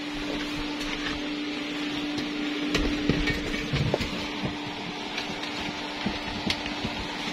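Steady low hum with scattered clicks and knocks inside the cabin of a parked Cessna Caravan whose engine is not running.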